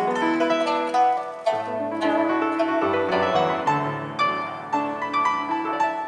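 Pipa playing a run of quick plucked notes, accompanied by a grand piano.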